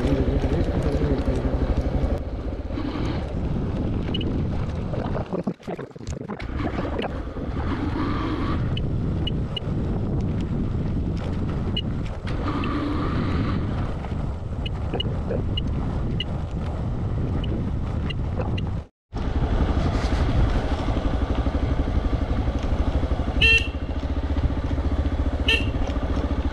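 Hero XPulse 200 motorcycle's single-cylinder engine running steadily as it is ridden over a rough dirt road, heard from the rider's position. The sound drops out for a moment about 19 seconds in.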